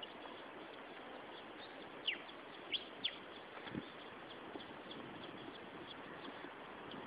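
Small birds chirping, with a few short falling chirps a little after two and three seconds in and quick high ticks throughout, over a steady hiss.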